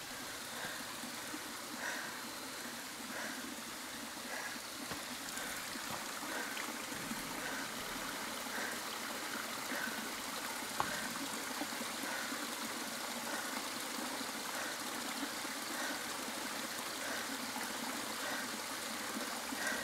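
A mountain stream rushing and trickling steadily.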